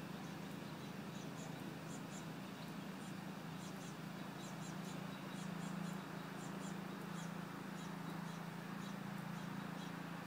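A small bird chirping over and over in short, high notes, often in quick pairs or threes, over a steady low hum.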